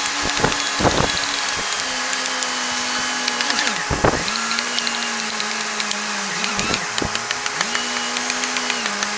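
Power tool motor running as it works wood, its hum sagging in pitch under load and recovering, twice, with a few sharp knocks.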